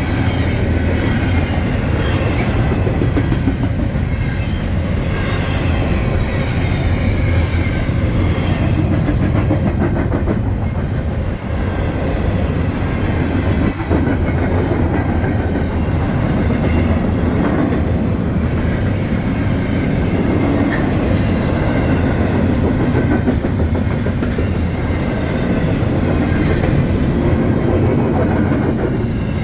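CSX intermodal freight train's cars rolling past at speed: a steady, loud noise of steel wheels on rail, heaviest in the low end.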